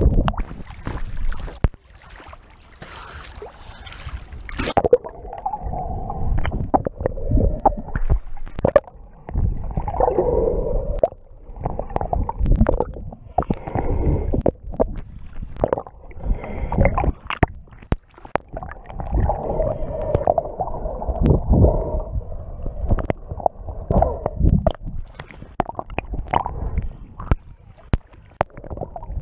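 Muffled water sloshing and gurgling against a snorkeler's underwater camera as he swims, with irregular knocks and swells.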